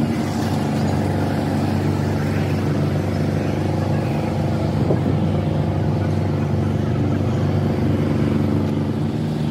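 An engine running steadily at a constant speed, with a low, even hum that does not change.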